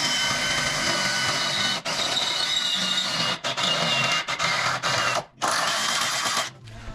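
Power drill boring a mounting hole, running with a high whine and squeal. The bit is stopped and restarted several times, pauses briefly about five seconds in, and stops shortly before the end.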